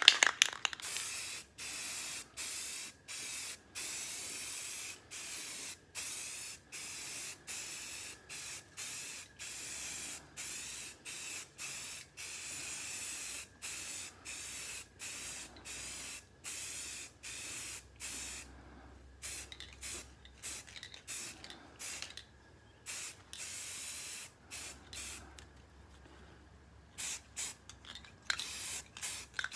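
Rust-Oleum 2X flat grey aerosol spray paint can spraying in short bursts, one or two a second, a hiss broken by brief gaps. In the last third the bursts come further apart and are quieter.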